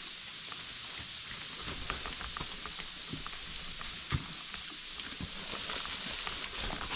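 Footsteps and rustling through leaf litter and brush on a forest trail: scattered irregular small crunches and one sharper snap about four seconds in, over a steady high hiss from the woods.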